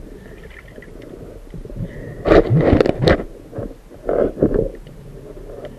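Muffled underwater rumbling and scraping picked up through a camera housing on a speargun, with irregular louder bursts about two seconds in and again about four seconds in.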